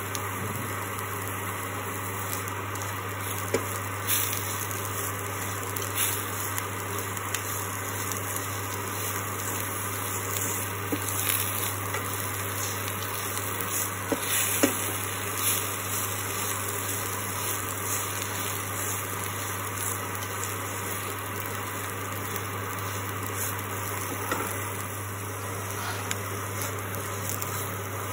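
Spatula stirring and scraping a dry mixture of ground coconut, rice and spices as it fries in a kadai, with a faint sizzle and scattered short taps against the pan. A steady low hum runs underneath.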